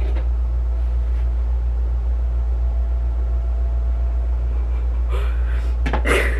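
Steady low-pitched hum with a faint even pulsing. Near the end come two brief noisy sounds, the second louder.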